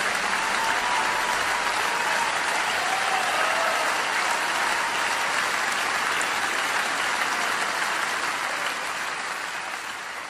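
Audience applauding as the song ends, with a couple of faint whistles in the first few seconds; the applause fades down near the end.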